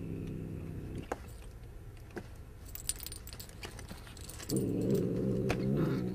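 A cat growls low and steadily. The growl breaks off about a second in and starts again near the end. In between, a tinsel sparkle ball rustles and crinkles with a few light clicks as the cat bats it on the floor.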